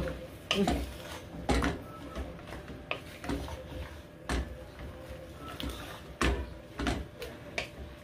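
A wooden spoon stirring and tossing vegetables in an aluminium pot, knocking and scraping against the pot's sides in irregular clacks about once a second.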